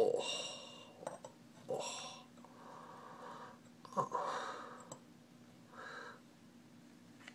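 A person's breathy vocal sounds, sighs and gasps, about five of them with short pauses between.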